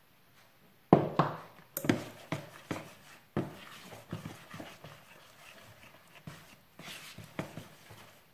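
A spoon scraping and knocking against a plastic mixing bowl as flour is stirred into the liquid for a yeast dough. The strokes are sharp and start about a second in. After about three and a half seconds they give way to softer scraping and squishing as the dough is mixed by hand.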